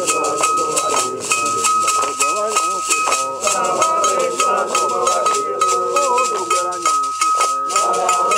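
A group of men singing together over hand claps, a shaker rattle and a metal bell struck in a steady rhythm.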